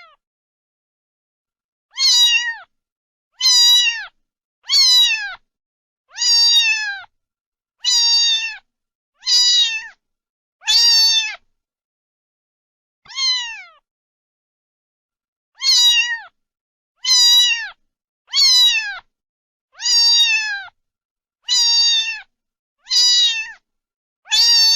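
A cat meowing over and over, about fifteen short, high meows that each drop in pitch at the end, coming every second and a half or so with a longer pause about halfway through.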